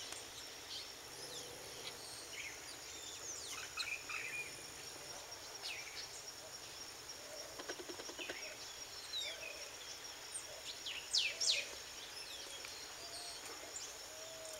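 Outdoor ambience: many short bird chirps and calls over a steady high-pitched insect drone, the loudest calls coming in a quick cluster about eleven seconds in.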